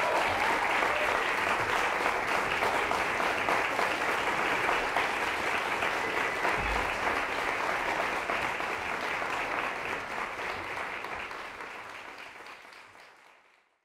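Audience applauding, fading away over the last few seconds.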